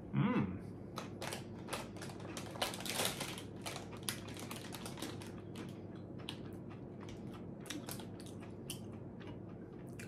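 Mouth-closed chewing of bhujia sev, a crisp fried bean-flour noodle snack: irregular, crisp crunches and crackles. It opens with a brief hummed vocal sound near the start, which is the loudest moment.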